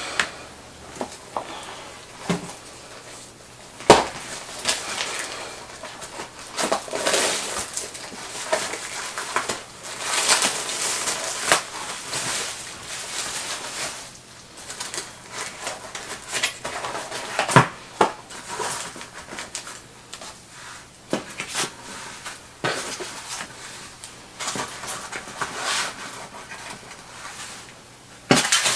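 Fireworks pack being unboxed: its packaging rustling and crinkling in irregular bursts, with scattered knocks and clicks as the box and fireworks are handled.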